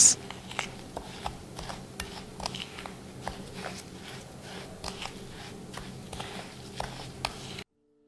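Metal spoon stirring and scraping a dry mix of baking soda, Epsom salt and dried eucalyptus leaves in a glass bowl: a run of soft, irregular scrapes and light clinks against the glass. It cuts off suddenly near the end.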